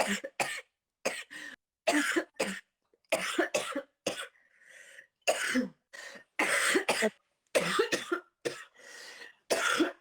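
A sick young woman coughing repeatedly in short fits, about ten harsh coughs in clusters with brief pauses between them.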